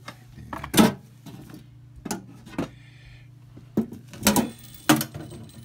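A run of sharp knocks and clunks, about six in all and the loudest about a second in, with a short scraping rattle near the middle, as the Riello oil burner's cover is handled and taken off. A steady low hum runs underneath.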